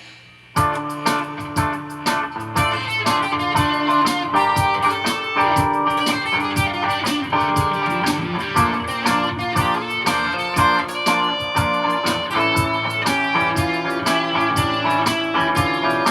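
Godin guitar playing jazz, plucked notes with a bass line moving under chords and melody, starting about half a second in.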